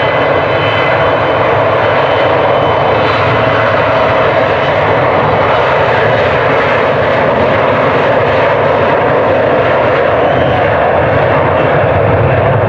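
Twin GE CF34 turbofans of an Embraer E175 regional jet at takeoff power during its departure roll, a loud steady jet roar. A high whine sits on top of the roar and fades after about three seconds.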